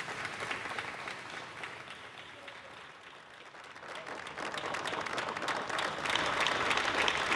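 A crowd applauding, a dense patter of many hands clapping that thins a little, then swells louder about four seconds in.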